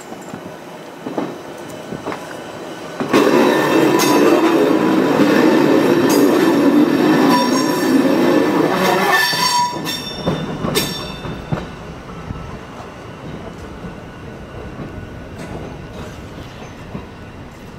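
Izuhakone Railway electric locomotive rolling past at close range. Its wheel and running noise, with some wheel squeal, rises sharply about three seconds in, stays loud for about six seconds and then drops off suddenly. A few sharp knocks follow as it moves away.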